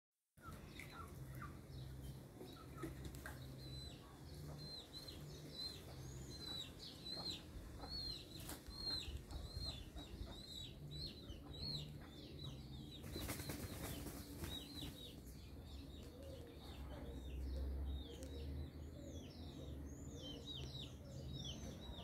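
Many small birds chirping together in an evening chorus: quick, short arched chirps overlapping one another, with a brief rush of noise about 13 seconds in.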